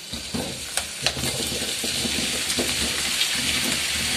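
Raw potato cubes dropping into hot olive oil in a frying pan: sizzling that builds over the first couple of seconds as more cubes land, then holds steady. A few sharp knocks sound near the start.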